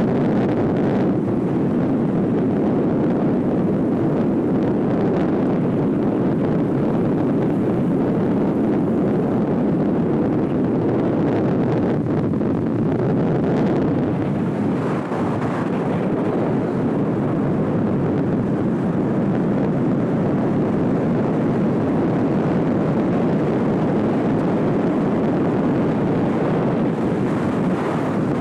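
Steady rush of wind noise buffeting the microphone of a moving camera vehicle, with vehicle and road noise underneath; it stays even throughout.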